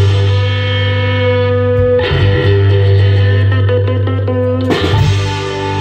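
Amplified electric guitar and bass playing sustained chords over a steady low bass note, the chord changing about two seconds in and again near the end: a sound check of the one-man-band rig.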